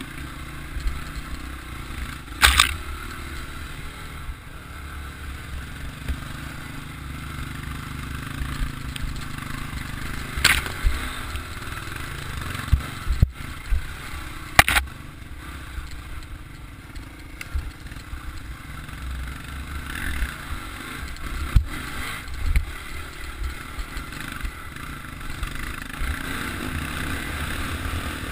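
Dirt bike engine running while riding a rough trail, heard through a helmet-mounted camera with low wind rumble and rattling, punctuated by about five sharp knocks.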